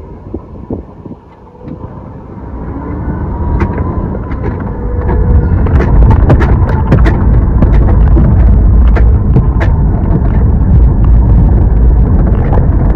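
A car driving, its low rumble of engine and road noise heard from the inside. The rumble swells over the first few seconds, and short rattles and knocks come through in the middle.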